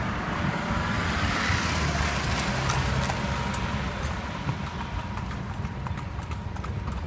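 Horse's hooves clip-clopping on asphalt as it pulls an open carriage, heard from the carriage, over a steady low rumble.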